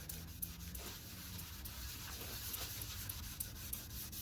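Cloth rubbing over a plastic headlight lens, wiping off dried headlight-restorer compound: a quiet, steady rubbing hiss with small scuffs.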